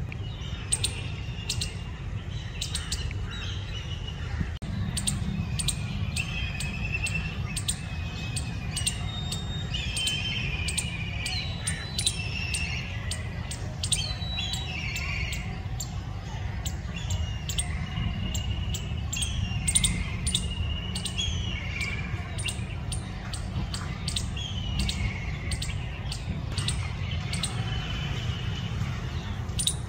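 Squirrel calling: a running series of sharp, clicking chips scattered throughout, mixed with short high-pitched chirps and whistled slides, over a steady low rumble.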